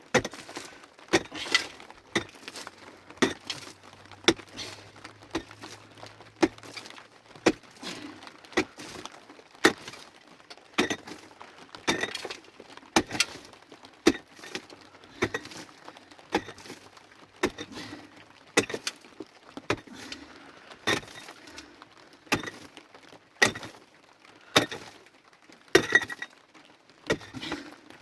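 A long run of sharp cracks and knocks, about one to two a second, as something hard is struck or broken over and over.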